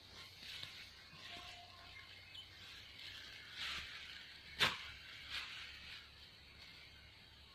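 Rural outdoor ambience: a steady high-pitched hiss with soft rustling, and one sharp snap a little past halfway, the loudest sound.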